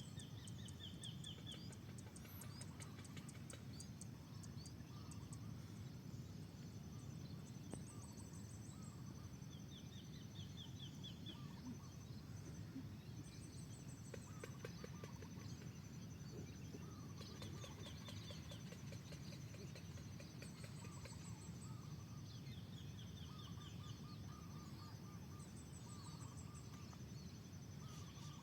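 Morning rice-field ambience: birds calling, with short trills of quick notes every few seconds and scattered lower calls, over a faint steady low rumble and a fine, high ticking trill.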